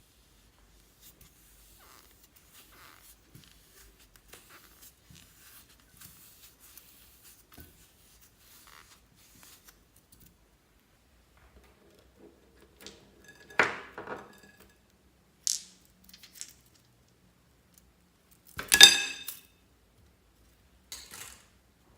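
Clear slime being handled, with faint soft sticky crackles. In the second half come a few short clatters and clinks of small hard objects; the loudest one rings briefly near the end.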